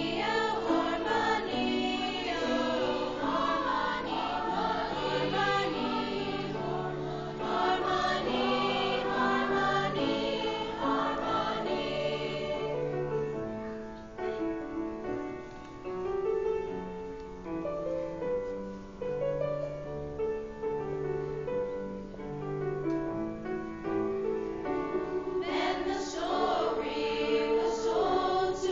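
Mixed-voice school show choir singing, holding long chords. The sound thins out about halfway through and swells fuller again near the end.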